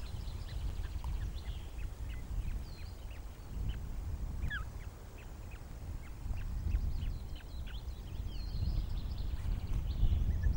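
Short, high-pitched osprey chirps, several a second, over a steady low rumble.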